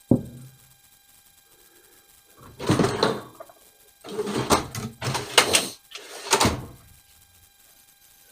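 Rifle parts being handled on a workbench during AR-15 upper assembly: a sharp knock at the start, then four short bouts of rustling and clattering.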